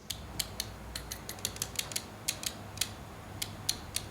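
A run of light, sharp mechanical clicks and ticks at uneven spacing, a few a second, like a small ratchet or mechanism being worked.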